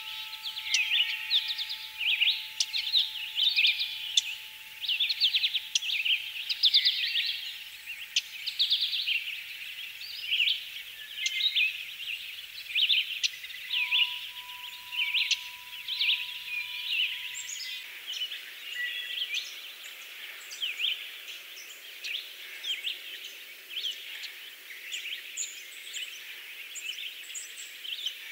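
Many birds chirping and trilling together in a dense, continuous chorus of short, high calls. A faint steady tone sits under it for the first two-thirds and stops.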